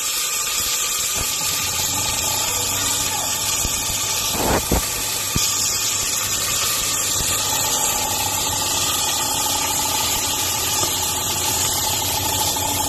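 Chicken pieces sizzling steadily in hot oil in a stainless steel pot, with two knocks against the pot about four and a half seconds in.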